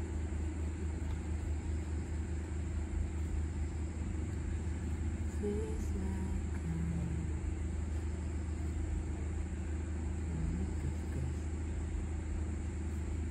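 Steady low background hum, unchanging throughout, with a thin high whine above it.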